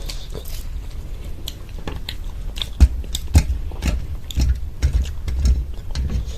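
Chewing and crunching of a crisp-crusted homemade samosa: a run of sharp crackles and bites, the loudest a little under three seconds in and again about half a second later.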